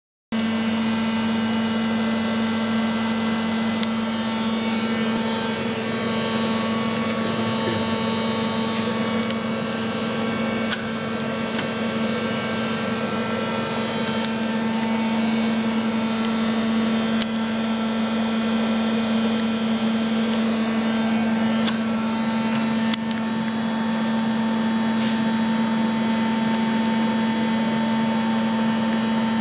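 TOS Teach-In lathe running with coolant flowing over the tool. It makes a steady machine hum with a constant low tone, a higher tone that drops out midway and comes back later, and a few sharp clicks scattered through.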